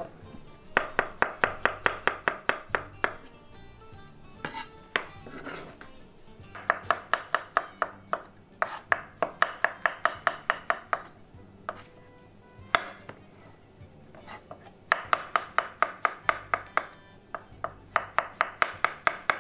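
Chef's knife slicing button mushrooms on a wooden cutting board: quick, even knife taps on the board, about five a second, in several runs with short pauses between.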